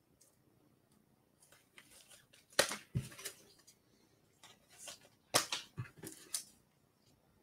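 Trading-card packaging being torn open by hand: two short bouts of crackly ripping and crinkling, about three seconds apart, with smaller rustles around them.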